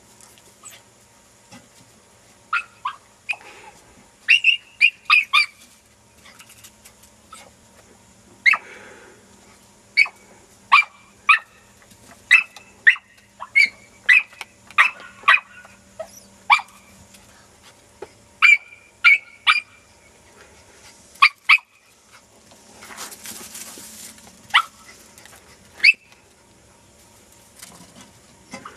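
Podenco hound yelping: short, high-pitched barks, some single and some in quick runs of several, on and off.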